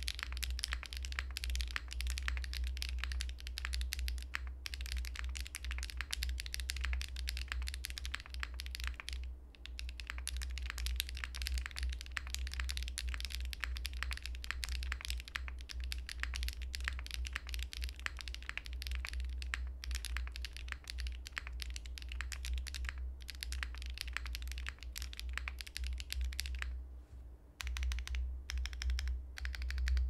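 Continuous typing on an F1-8X mechanical keyboard with factory-lubed HMX Macaron switches on POK stems, GMK Fuji keycaps and an aluminium plate over a hotswap PCB, with no foam. The keystrokes come in a dense, fast stream, with a brief pause about nine seconds in and a longer one near the end, followed by a few separate presses.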